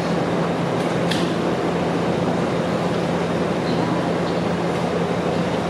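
Steady hum and whoosh of a stationary electric train's rooftop air-conditioning unit and onboard equipment running, with a constant low drone. A brief tick about a second in.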